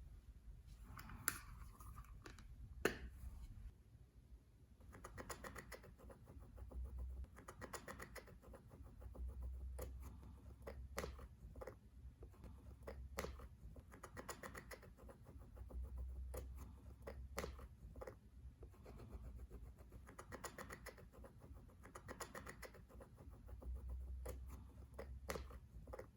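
Slime being squished and worked by hand, with sticky crackles and small pops from trapped air. The sound comes in slow waves a couple of seconds apart, with two louder clicks in the first three seconds.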